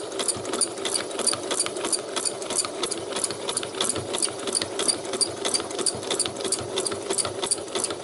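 Domestic sewing machine running steadily for free-motion embroidery with a darning foot, set to zigzag stitch, its needle strokes ticking quickly and evenly over the motor's hum.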